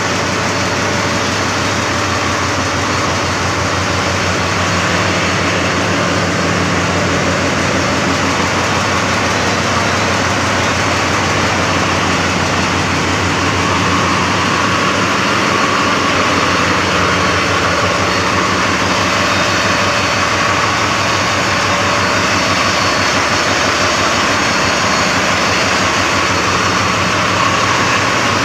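Loud, steady drone of running marine diesel engines in a ship's engine room, including a multi-cylinder Yanmar diesel passed up close, with a rapid even firing beat under a dense mechanical roar.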